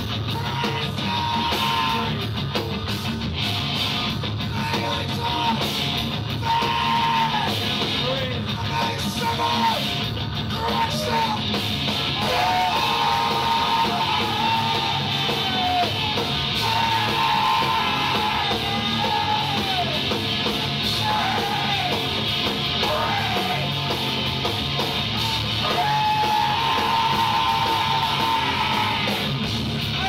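A live rock band playing heavy, math-rock style music on electric guitars, bass and drums, with a singer yelling the vocals in long held lines over it.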